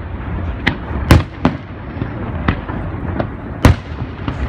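Aerial firework shells bursting: a series of sharp bangs, about six in four seconds, the loudest a little after one second in and again near the end, over a steady low rumble.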